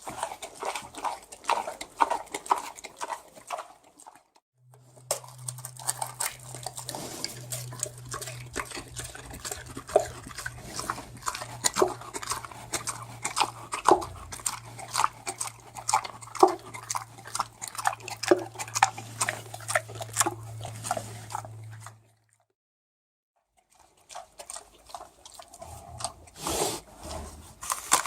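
Pig eating: rapid, wet chewing and smacking. It comes in separate takes split by brief silences about four seconds in and about twenty-two seconds in.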